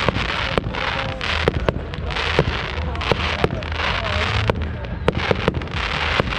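Fireworks display: many sharp bangs several times a second, irregularly spaced, over continuous crackling.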